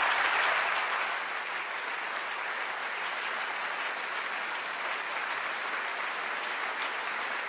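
Large audience applauding steadily, loudest at the very start, after the closing words of a talk.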